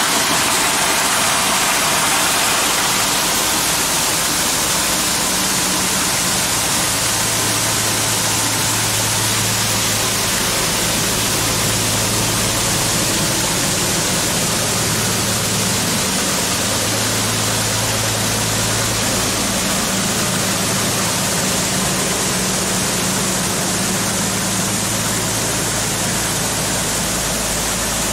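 Grain augers and a combine running, with a steady rush of grain being unloaded into a pit and carried up into a silo. A low hum comes and goes partway through.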